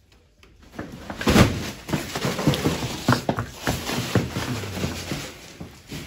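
Plastic sheet draped on a mule rustling and crackling loudly as it is handled and shifts, with scattered knocks and clicks. It starts about half a second in and is loudest just after a second in.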